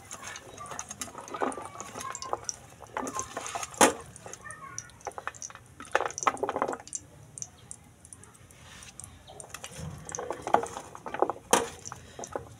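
Hot cooking oil in a pan, crackling and spitting with irregular small pops, two sharper pops about four seconds in and near the end.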